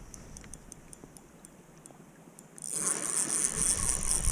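Spinning reel being worked: faint, evenly spaced ticking, then about two and a half seconds in the crank is turned and the retrieve starts with a steady whirring rattle.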